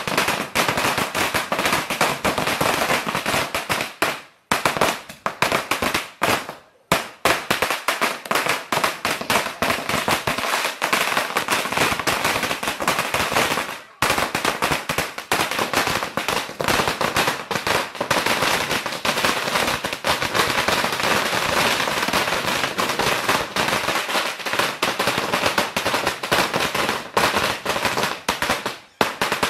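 Firecrackers going off in a dense, rapid string of sharp cracks, with only a few short breaks, about 4 s, 7 s and 14 s in.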